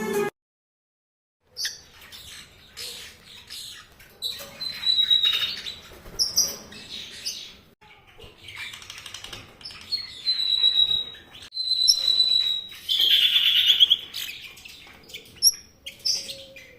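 Small birds chirping and calling: short chirps, several held whistled notes, and a rapid trill near the end.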